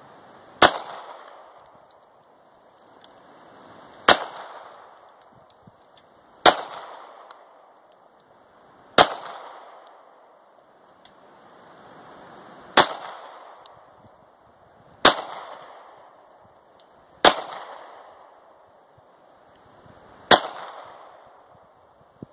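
Bersa Thunder .380 pistol fired eight times in slow, aimed fire, a shot every two to four seconds, each crack trailing off over about a second.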